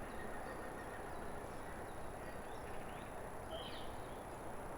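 Quiet outdoor ambience: a steady low background hiss with a few faint, distant bird chirps, one of them about three and a half seconds in.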